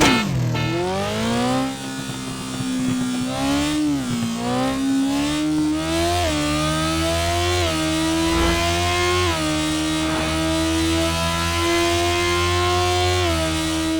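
Sport motorcycle engine at high revs. The pitch drops sharply right at the start and climbs back, dips again about four seconds in, then holds fairly steady with small stepwise changes in pitch.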